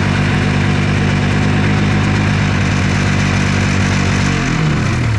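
Ski-Doo Bravo snowmobile's two-stroke engine running just after a cold start at −22 °C, then dropping in pitch about four and a half seconds in and dying away: the cold engine stalls.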